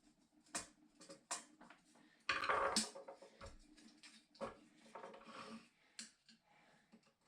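Clicks, taps and light scraping of hand tools and small metal parts while a VW T3 headlight is worked loose from its frame, with a louder half-second clatter a little over two seconds in.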